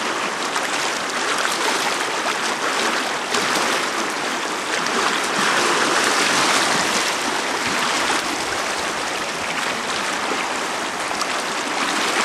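Shallow river rapids rushing over and around boulders: a steady, unbroken rush of whitewater, slightly fuller about halfway through.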